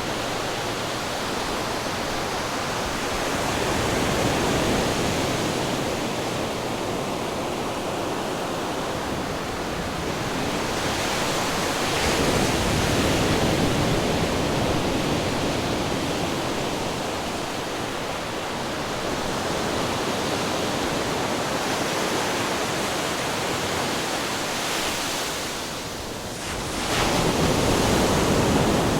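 Ocean waves crashing onto rocks: a continuous rushing roar of surf that swells with each breaking wave, about every eight seconds, the strongest near 12 s and just before the end.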